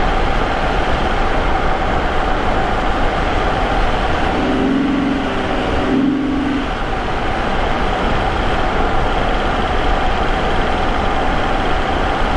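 Vauxhall Omega's Y32SE 3.2-litre 24-valve V6, with a K&N air filter and custom exhaust, running steadily at a cruise, picked up close to the intake, with tyre noise on a wet road. A brief hum rises out of it about four seconds in.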